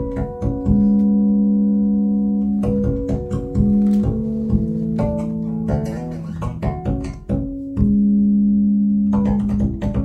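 Recorded instrumental music played over a pair of hi-fi stereo loudspeakers in a small room: held low and mid notes, each starting with a sharp plucked or struck attack.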